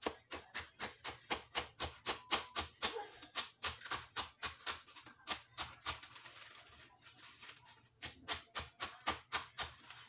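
Kitchen knife chopping mustard greens on a wooden cutting board: quick, even strokes about four a second. The strokes stop for about two seconds after six seconds in, then resume at the same pace.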